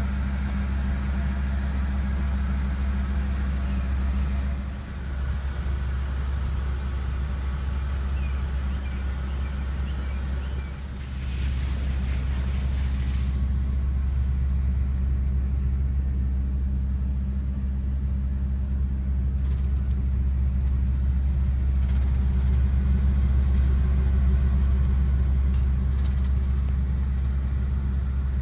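A 2002 Ford F-450's 6.8-litre gasoline V10 idling steadily, a constant low hum.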